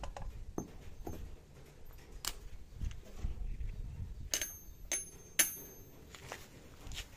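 Steel ball bearings clinking against each other and against a steel disc as they are handled and set down: a few soft knocks, then three sharp ringing metal clinks in quick succession a little past halfway.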